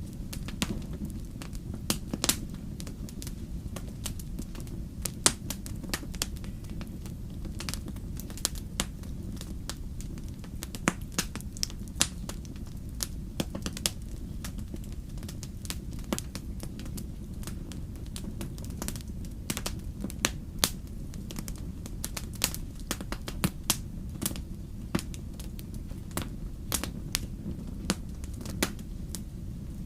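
Wood fire burning in a fireplace, crackling with irregular sharp pops and snaps over a steady low rumble.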